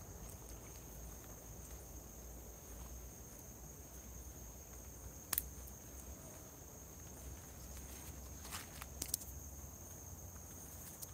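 A steady high-pitched chorus of night insects, with a few sharp clicks of footsteps on leafy ground about five seconds in and again two or three times near nine seconds.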